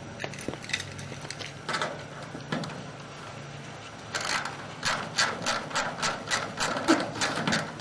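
Cable reel of a drain inspection camera turning, giving a run of ratcheting clicks at about four a second that starts about four seconds in, after a few scattered clicks over a low hum.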